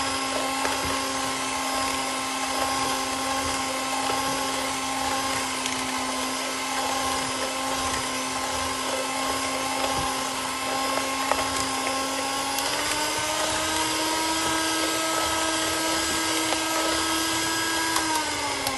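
Electric hand mixer with spiral hooks running steadily, a motor whine, as it works butter, flour and sugar into streusel crumbs. About two-thirds through the pitch steps up a little, and near the end the motor winds down as it is switched off.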